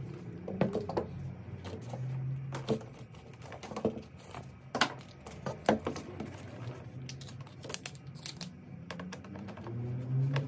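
Irregular clicks and taps from hands handling a BMW E36's plastic centre console and its worn fabric covering.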